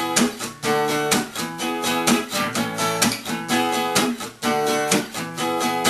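Acoustic guitar strummed in a steady rhythm, each stroke followed by ringing chord tones; an instrumental break with no singing.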